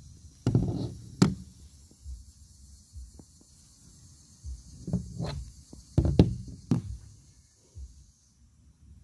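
Knocks and bumps from CO2 BB pistols being handled and set down on a hard surface, several in two clusters, over a steady high hiss that stops near the end.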